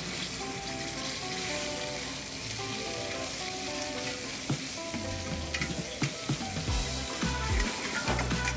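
Beef sizzling in hot oil in a carbon-steel wok over a gas burner, the pieces turned with metal tongs, with a few sharp clicks of metal on the pan. Background music plays alongside.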